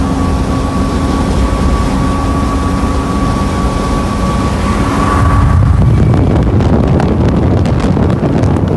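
A vehicle driving fast on a highway, heard from inside the cabin: a steady engine drone with road noise. From about five seconds in it grows louder, with wind buffeting and crackling on the microphone.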